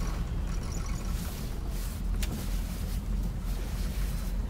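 Motor cruiser's inboard engine running underway, a steady low rumble, with one sharp click about two seconds in.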